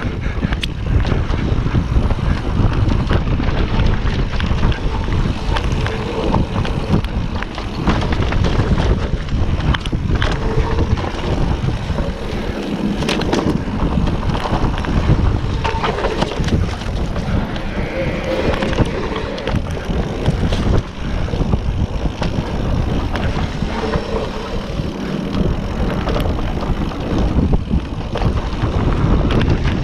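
Mountain bike riding fast down a dirt trail: wind buffeting the microphone over a steady rush of tyre noise, with frequent sharp clicks and rattles as the bike goes over bumps.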